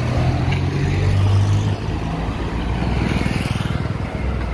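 Traffic noise: a motor vehicle's engine running close by with a steady low hum, over general road rumble.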